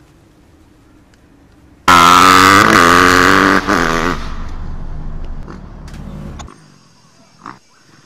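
Motocross dirt bike engine running hard at high revs, starting loud and sudden about two seconds in, then fading as the bike pulls away, and cut off abruptly near the end.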